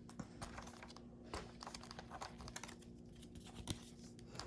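Faint scattered clicks and light crinkling as trading cards and their plastic packaging are handled, over a faint steady hum.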